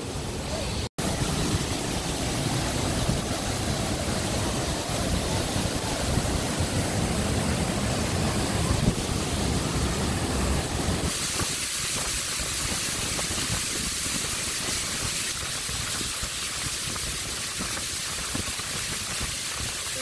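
Waterfall rushing: a steady, dense hiss of falling and churning water. It drops out for an instant about a second in, and from about eleven seconds in it turns brighter and hissier with less low rumble.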